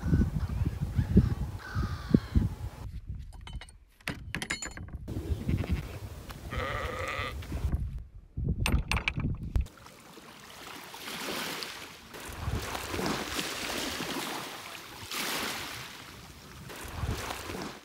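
A sheep bleats once, about seven seconds in, over a low rumble. From about ten seconds in, water washes over the mudflats in slow swells that rise and fall.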